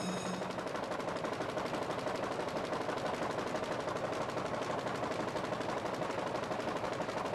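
Newspaper printing press running at speed: a fast, even, continuous mechanical clatter.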